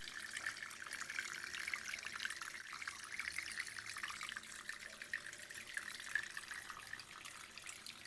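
Water trickling and splashing in a small homemade waterfall fountain: a faint, steady patter of falling water.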